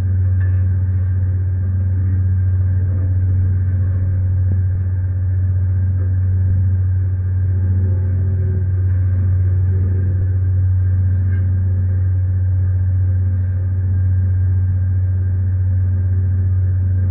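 Ship's engine and machinery running steadily under way: a deep, even drone with fainter steady hums above it.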